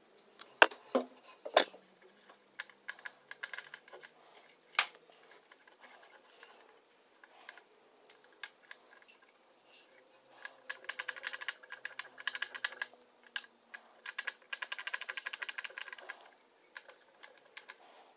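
Cotton swab scrubbing in the metal bobbin area of a Singer 401 sewing machine, a rapid scratchy clicking that runs for several seconds in the second half. A few sharp clicks and taps come first, near the start, with scattered single ticks after.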